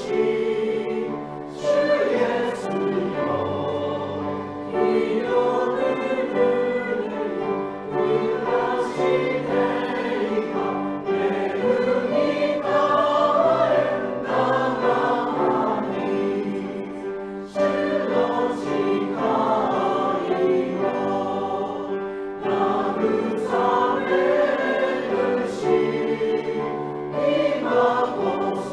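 Congregation and worship team singing a Japanese hymn together, in sustained sung phrases, reaching the start of the third verse near the end.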